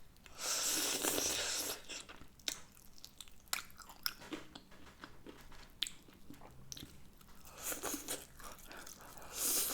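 A person biting and chewing breaded hot and spicy chicken wings close to the microphone: crunching of the crispy coating and wet chewing. It is loudest about half a second in, then continues as scattered small crackles and clicks.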